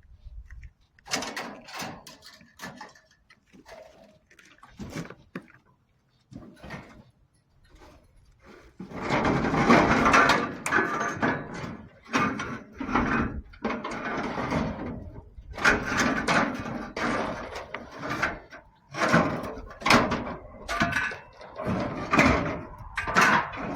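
Scattered knocks, then from about nine seconds in a long stretch of dense clattering and banging, as of scrap metal being handled and moved.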